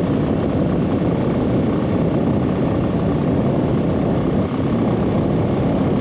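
Royal Enfield Classic 350's single-cylinder engine running steadily at cruising speed, heard from the rider's seat.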